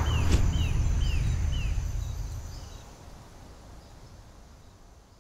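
A bird calling a quick run of short falling notes, about two a second, over a low rumble and forest ambience, with one sharp click just after the start. The whole sound fades away over the last three seconds.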